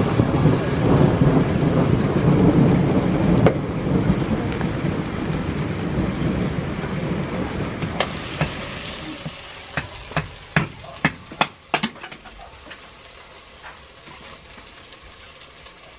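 Water poured from a jug into a cooking pot on a wood fire: a loud rushing splash that tapers off over several seconds. It is followed by a quick run of sharp knocks.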